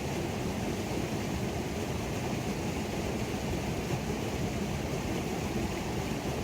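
Waterfall on a creek, water pouring and rushing in a steady, unbroken deep rush.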